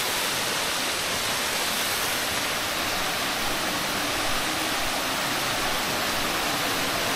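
Small waterfalls cascading into a pool: a steady, even rush of falling water.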